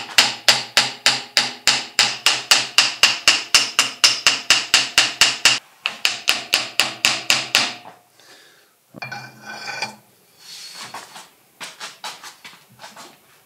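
Hammer tapping rapidly around the threaded gland nut of a Kubota L1-18 loader's hydraulic cylinder to free a seized nut, about five ringing metal strikes a second in two long runs. About nine seconds in comes a brief scraping sound, then a few lighter taps near the end.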